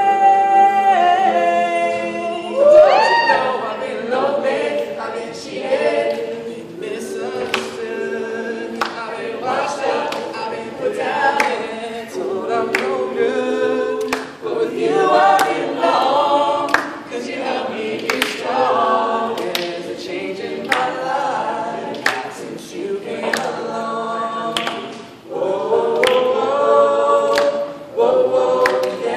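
Mixed a cappella group of men and women singing a pop song in harmony, held chords moving from note to note, with no instruments.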